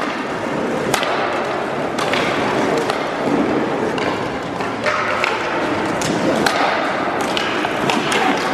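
Inline hockey skates rolling on the rink floor, a steady wheel rumble, with several sharp clacks of sticks striking the puck.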